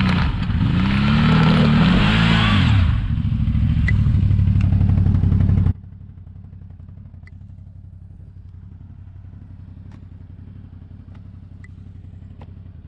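Vehicle engine revving up and down several times over a steady running note. About six seconds in it drops abruptly to a quieter, steady engine run with a few light clicks.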